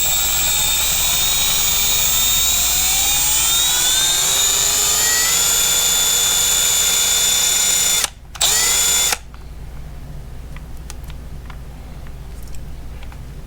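Milwaukee M12 Fuel 3/8-inch right angle impact wrench running free with no load in its auto mode. The motor's whine rises in pitch over the first few seconds, then holds steady. About eight seconds in it stops, runs once more for under a second, then stops, followed by a few faint clicks.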